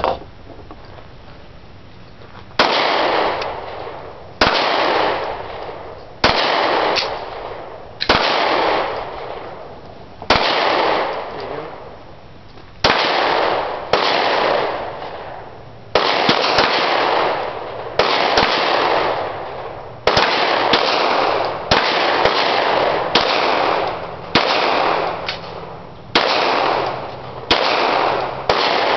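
Pistol shots fired at a steady pace, one every second or two, about seventeen in all, each followed by a long echoing decay.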